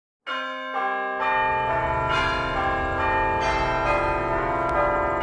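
Bells ringing in overlapping, sustained tones, new notes entering one after another after a sudden start, with a low rumble joining about a second in.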